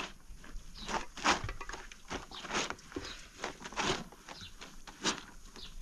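Wet clothes being scrubbed and squeezed by hand in a plastic basin of water: irregular wet swishes and squelches, roughly one every half second to second.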